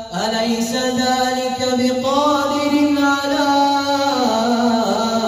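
A man's solo voice recites the Quran in melodic, drawn-out tajweed during prayer. After a brief breath at the start he holds long notes, rising about two seconds in and stepping back down near the end.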